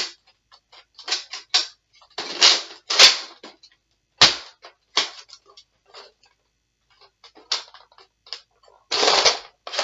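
Plastic clicks and rattles of a Nerf blaster being handled and worked: a run of short sharp clicks, longer rattling scrapes about 2 s in and near the end, and one sharp knock about 4 s in. The blaster is jamming, which he puts down to messed-up darts.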